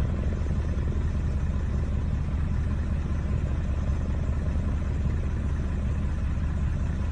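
Steady low rumble of a large powder-snow avalanche, set off with explosive charges.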